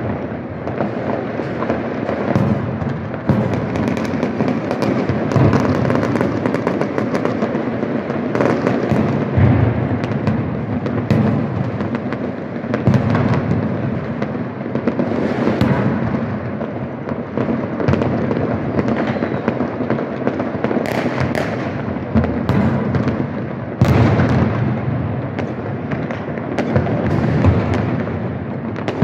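Fireworks going off all across a city at once: a continuous rumble of overlapping distant bangs with many sharper cracks on top, never letting up.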